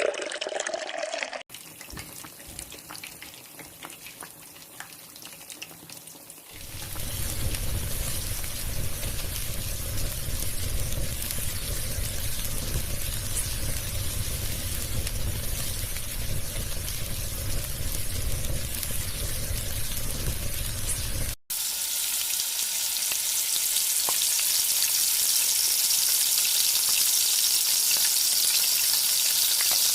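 A stretch of loud, steady rushing noise with a deep rumble, then, after a cut, food sizzling in hot oil with a bright, steady hiss.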